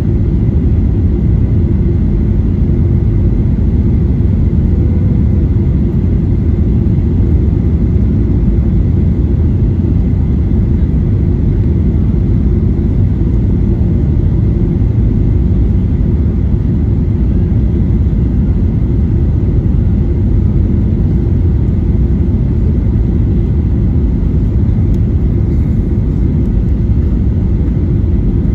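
Steady cabin rumble inside a Boeing 737-800 on final approach, flaps extended: its CFM56-7B engines and the rushing airflow heard from a window seat, with a faint steady high whine.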